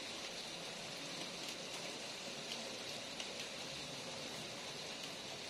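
Steady rain falling, with scattered single drops ticking.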